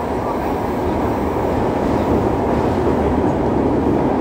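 Yokohama Municipal Subway 3000A train running, heard inside the car: steady wheel and track rumble, growing a little louder about halfway through.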